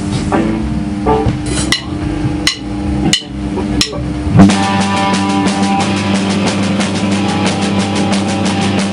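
Rock band in a rehearsal room: held guitar notes with four sharp taps at an even pace. About four and a half seconds in, the full band comes in on a loud hit, with electric guitar and bass held under fast, even drum strokes.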